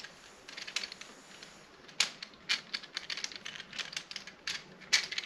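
Irregular sharp clicks and ticks of a camera tripod's head and a phone mount being handled and turned as the mount's screw is tried in the tripod's mounting thread, a few clicks a second with the loudest about two seconds in. The screw does not catch: it is too short for this mount.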